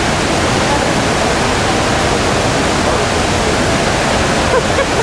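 Niagara Falls' falling water making a steady, even rushing noise with no change in level.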